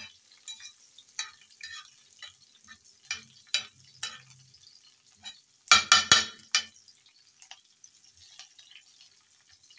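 Slotted metal spatula scraping and tapping across an iron tawa as garlic and green chillies fry in oil, with a light sizzle underneath. A few louder scrapes come close together about six seconds in.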